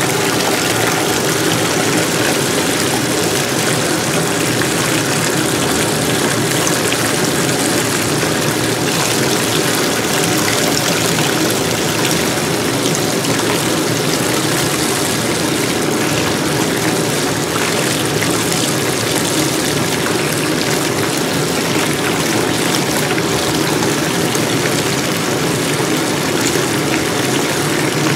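Bathtub tap running, a steady stream of water pouring into a filling tub and splashing over a bubble bar held in the flow.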